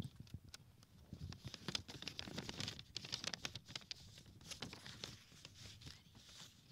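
Faint rustling and crinkling with many scattered clicks: handling noise at the microphone as it changes hands.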